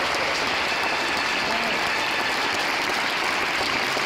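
Audience applauding steadily, with a few voices calling out above the clapping.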